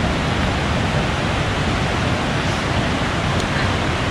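Waterfall's steady rush of falling water, loud and even throughout.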